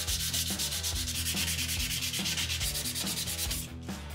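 Hand sanding with sandpaper: rapid, evenly spaced back-and-forth rubbing strokes that stop shortly before the end.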